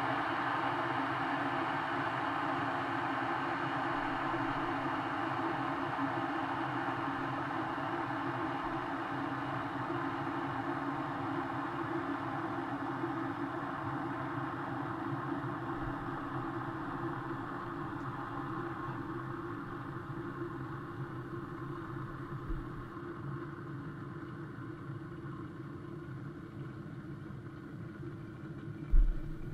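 Smeg electric kettle heating water: a steady hiss with a low hum that slowly fades, and a single thump near the end.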